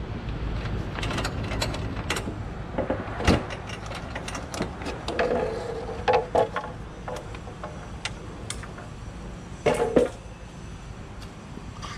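Knocks, clicks and rattling of a forklift's engine hood and seat assembly being handled and moved by hand, with short creaks around the middle and near the end, over a steady low rumble.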